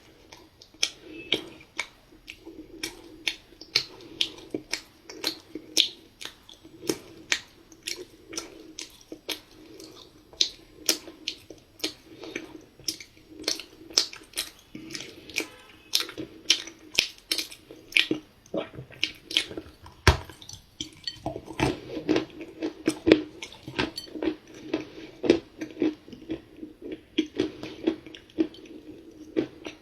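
Dry cookie chunks being chewed: sharp crunches about two to three a second over softer continuous chewing.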